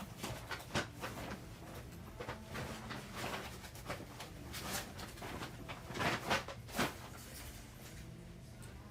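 Irregular knocks, clicks and rustles of belongings being handled and moved while packing, with a few louder knocks about six to seven seconds in.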